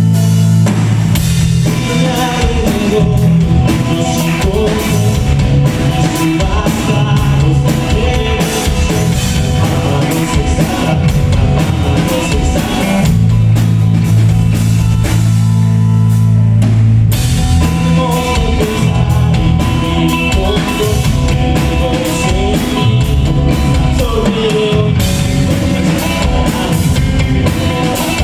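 Loud music with a drum kit and a heavy, sustained bass line.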